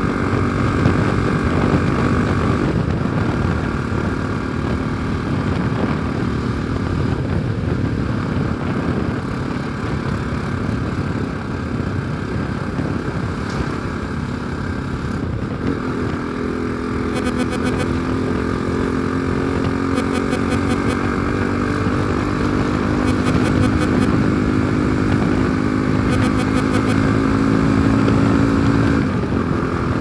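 Bajaj Pulsar NS200 single-cylinder motorcycle engine running steadily while riding, under constant wind and road noise. The engine note becomes clearer and holds steady from about halfway through.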